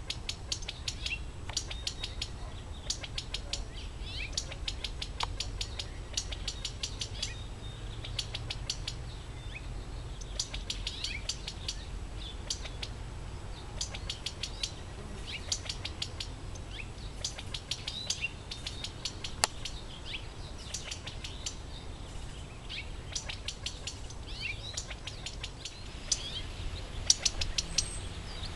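California quails calling, in repeated runs of rapid sharp ticking notes that each last a second or two, with a few brighter sliding call notes between them.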